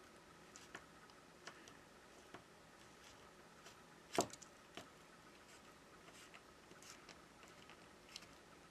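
Faint, scattered clicks and taps of a plastic pry tool working under a phone battery against the phone's frame, with one sharper click about four seconds in.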